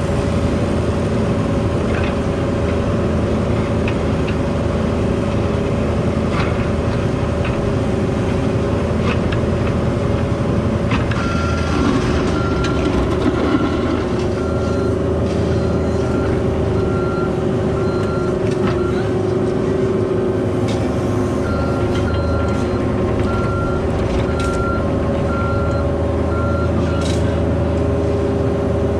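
Diesel work machine engine running steadily, with a backup alarm beeping about once a second from a little before halfway, pausing briefly, then beeping again until near the end.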